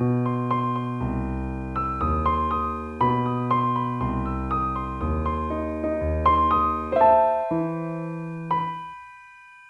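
Slow, relaxing piano music: chords over a bass note changing about once a second, dying away on a single held note near the end.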